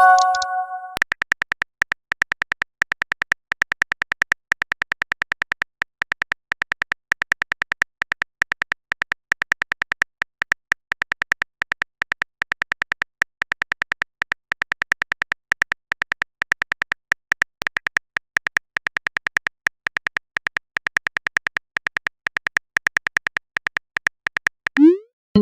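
Rapid, steady keyboard-typing clicks from a texting-app sound effect, several a second without a break, opening with a short chime of a few steady tones.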